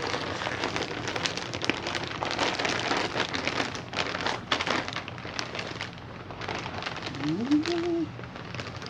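Plastic packaging crinkling and rustling as a mail bag of t-shirts is unpacked by hand: a dense run of irregular crackles, with a brief hum near the end.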